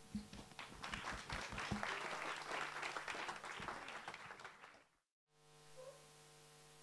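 Audience clapping, a dense patter of many hands that tapers off after about four and a half seconds. It cuts out briefly near the end and gives way to a faint steady hum.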